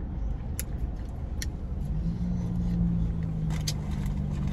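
A car engine idling with a steady low rumble. A steady hum joins about two seconds in, and there are a few faint clicks.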